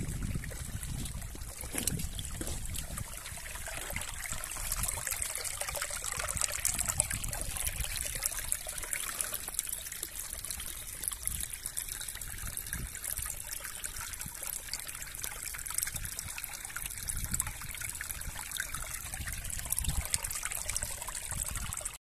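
Small woodland stream trickling and babbling over stones and leaf litter: a steady watery patter, with some low rumble in the first couple of seconds.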